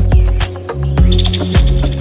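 Background music with a steady beat, deep bass notes and crisp percussion hits, with a high, fast trill about halfway through.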